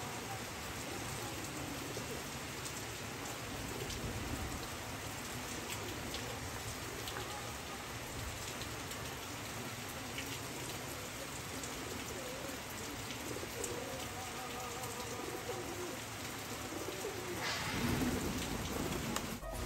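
Steady rain pattering on wet concrete and puddles, with pigeons cooing softly now and then. Near the end, a louder rush of wingbeats as a pigeon flaps off.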